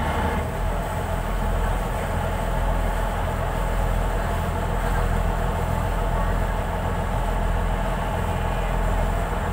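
Boat engine running steadily with a low, even hum as the boat moves slowly through the harbour water.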